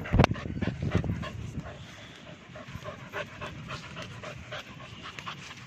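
A Rottweiler panting in a quick, even rhythm, after one loud low bump just at the start.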